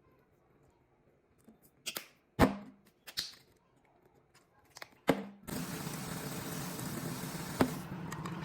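A few sharp knocks and clicks of kitchen things being handled, then about five and a half seconds in a kitchen appliance's motor starts and runs steadily with a low hum.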